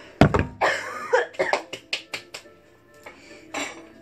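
A steel mixing bowl set down hard right by the phone, a loud thud about a fifth of a second in. Cough-like noises follow, then a quick run of sharp clicks and knocks, over faint background music.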